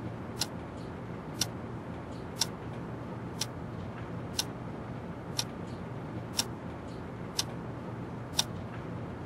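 Clock ticking steadily, about one sharp tick a second with fainter ticks between, over a steady low hum.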